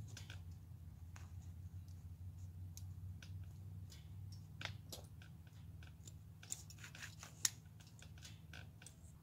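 Small scattered clicks, scratches and rustles of rabbit pelts being hand-sewn with a needle and thread, with a sharper click about seven and a half seconds in.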